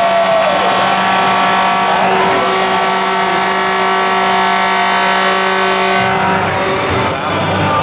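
Hockey arena goal horn sounding one long, steady blast that thins out about six seconds in.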